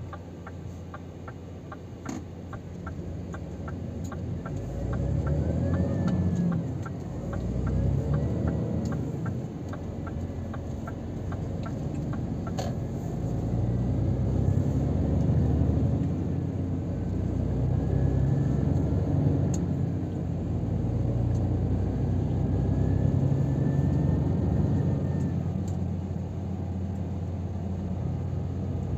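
Scania R500 truck's diesel engine heard from inside the cab, pulling away and building speed, with brief dips in level as it changes gear. A steady rhythmic ticking, the turn-signal indicator, runs through the first ten seconds or so and then stops.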